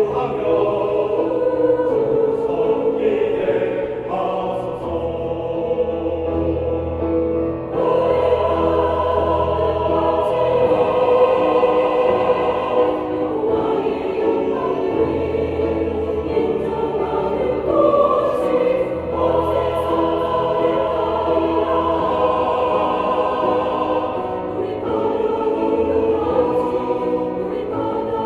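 Church choir singing a hymn anthem in several parts, with held chords over a steady low accompaniment.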